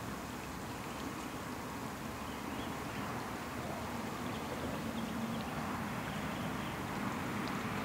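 Steady drone of road traffic on the concrete highway overpass.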